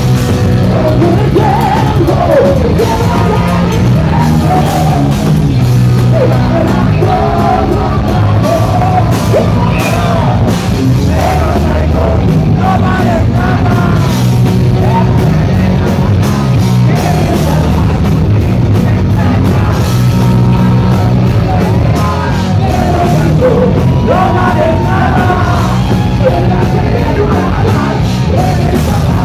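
A live rock band playing loudly through a club PA: electric guitar and a dense low end under a singer's yelled, sung vocals.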